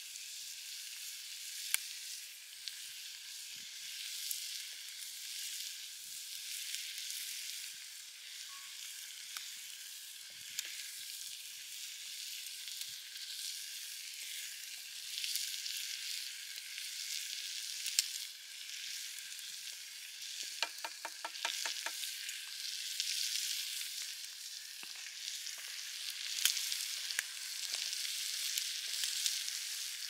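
Chopped tomatoes and sliced meat sizzling in two cast-iron skillets over campfire embers: a steady high hiss with scattered sharp crackles, and a wooden spoon stirring in the pan. About two-thirds through comes a quick run of about eight ticks.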